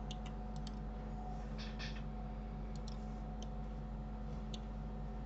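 Scattered clicks from a computer mouse and keyboard, with a short scraping burst about one and a half seconds in, over a steady low electrical hum.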